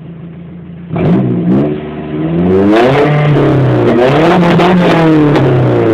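Nissan Hardbody pickup's engine revving through Flowmaster mufflers and dual exhaust tips: idling for about a second, a short blip, then several quick revs rising and falling in pitch.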